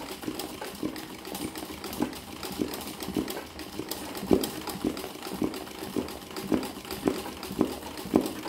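Sewing machine stitching free-motion embroidery through a terry towel: a fast, even run of needle strokes with louder knocks coming irregularly about twice a second.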